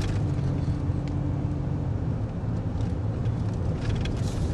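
Inside a moving car at low speed: the steady low hum of the engine together with tyre and road noise.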